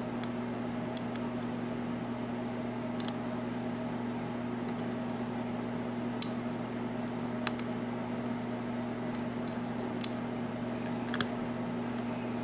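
Scattered small metallic clicks of a lock pick lifting and setting pins inside a six-pin Yale pin-tumbler rim cylinder held under a tension wrench. The cylinder is in a false set from its security pins. A steady low hum runs underneath.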